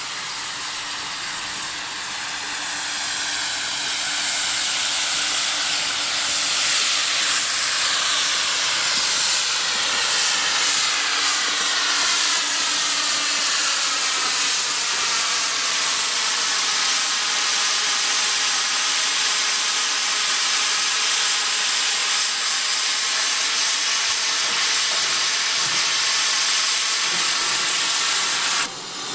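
Steam locomotive hissing steam in a loud, steady stream. The hiss builds over the first few seconds and cuts off abruptly near the end.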